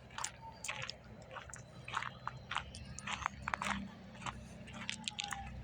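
Footsteps crunching irregularly, about two to three a second, over a steady low hum.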